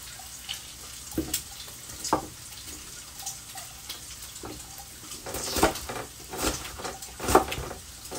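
Bacon sizzling in a frying pan over lowered heat: a steady frying hiss with scattered pops, and a few louder crackles or knocks between about five and seven and a half seconds in.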